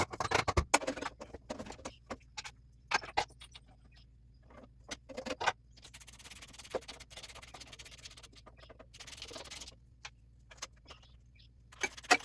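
Metal tools, bolts and parts clinking and clanking in irregular knocks while a starter motor is fitted to the engine, with a couple of short scraping, rustling stretches in between.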